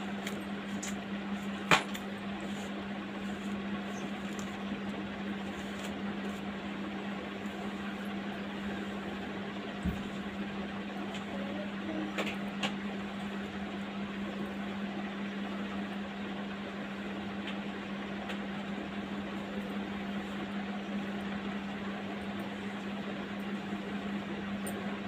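A steady electric motor hum with an even hiss beneath it, broken by a few faint clicks and one soft low thump.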